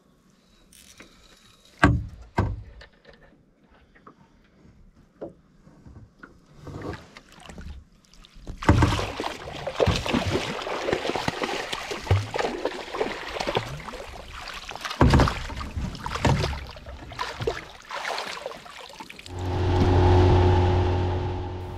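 Knocks and splashing aboard a small fishing boat, with a long stretch of rushing, clattering noise. Near the end a boat engine starts up and settles into a steady hum.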